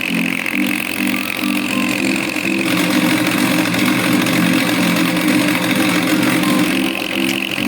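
Rotary swaging machine running: a steady mechanical hum that pulses about twice a second, with a high whine over it. From about three seconds in until near the end, the whine drops away and the hum runs unbroken.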